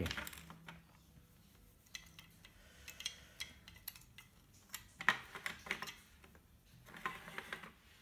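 Faint, scattered clicks and light taps of hard plastic parts and wires being handled at a refrigerator compressor's start relay and terminal connectors, the loudest pair about five seconds in.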